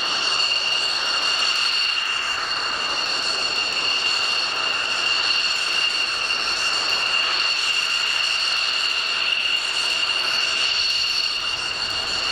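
Belgian Air Force F-16's Pratt & Whitney F100 turbofan at taxi power as the jet rolls slowly: a steady high-pitched whine over a rushing hiss.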